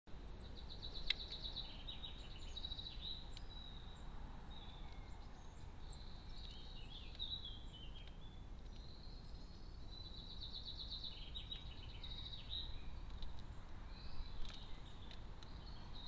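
Small songbirds singing, short high trills and chirps repeated every few seconds, over a low steady rumble. A couple of sharp clicks stand out, about a second in and again near the end.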